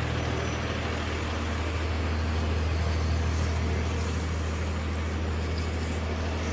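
Large rollback tow truck's engine idling steadily, a low even hum.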